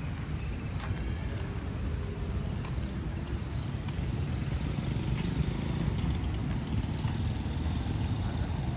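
Steady low rumble of car and motorcycle engines and traffic around a parking area. Faint wavering high tones sound in the first few seconds.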